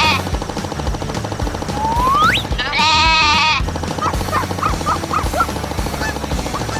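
Sheep bleat sound effect, one wavering call about a second long about three seconds in, over background music with a steady beat. Just before it a rising whistle-like glide, and short chirpy notes follow.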